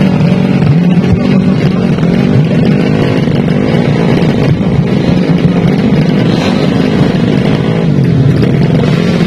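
Four-stroke 200 cc underbone drag bike engine being revved at the start line ahead of a launch, the revs rising and falling again and again and dipping near the end.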